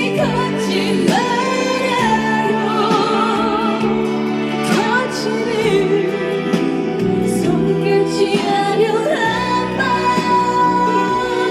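Slow ballad performed live: a female voice sings held, wavering notes over a full backing track.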